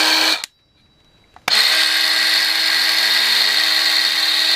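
Parkside PHKSA 12 A1 12 V cordless mini circular saw's motor running, switched off about half a second in, then switched on again about a second later, spinning up quickly and running at a steady pitch, not very high RPM.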